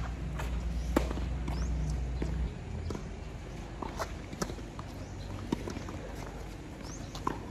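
Tennis ball struck by rackets and bouncing on a hard court during a doubles point: a handful of sharp pops, the loudest about a second in, with a serve struck about four seconds in. A low rumble underneath stops about two and a half seconds in.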